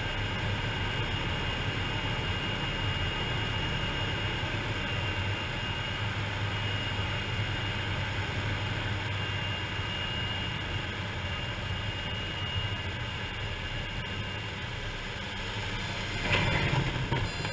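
Pilatus PC-6 Turbo Porter's turboprop engine and propeller droning steadily, heard from inside the cockpit on approach and landing, with a louder rush near the end as the aircraft rolls out on the airstrip.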